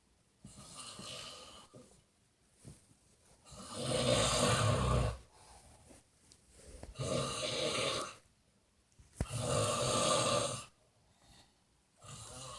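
A person snoring loudly in sleep. There are three loud snores, each about a second long and about three seconds apart, with a weaker one near the start and quiet pauses between breaths.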